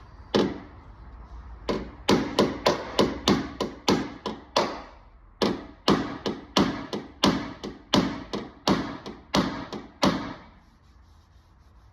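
Hammer striking car body sheet metal in about two dozen quick blows, roughly three a second, each with a short ring, with a brief pause near the middle.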